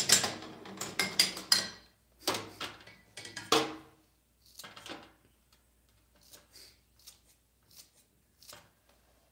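Kitchen items knocking and clattering on a tabletop for the first few seconds, then faint snips from kitchen scissors cutting on a cutting board, about once a second.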